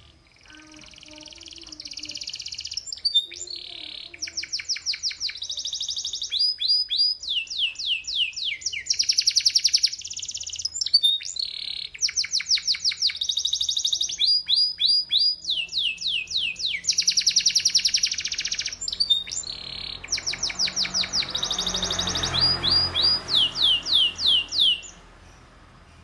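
Domestic canary singing a long, nearly unbroken song of fast trills: runs of rapidly repeated falling notes alternating with denser, rolling trills, all high-pitched. The song stops about a second before the end.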